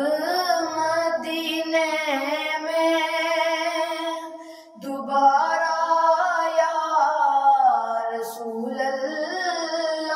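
A naat sung in Urdu by one high voice, in long held notes that waver and bend, with a short break for breath about halfway through.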